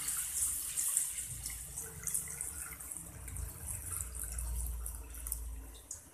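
Thin coconut milk poured from a bowl into an aluminium pot of fish heads and spice paste, a trickling, splashing pour that slowly grows quieter.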